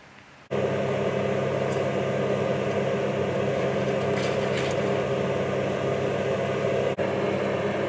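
A steady machine hum made of several steady low tones, starting abruptly about half a second in, with a momentary dropout near the end.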